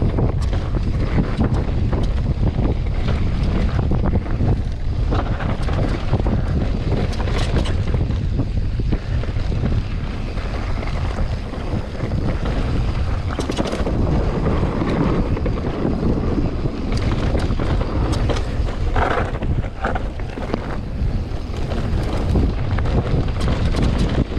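Loud wind buffeting the microphone of a camera carried on a mountain bike riding fast downhill, with tyre noise on dirt and frequent knocks and rattles from bumps on the trail.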